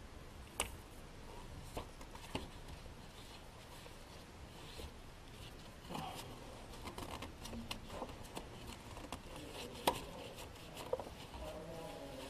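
Hand work on a car engine's oil filter with a makeshift filter wrench: scattered sharp clicks and knocks of the tool against metal, the loudest near ten seconds, with light rubbing and scraping in between.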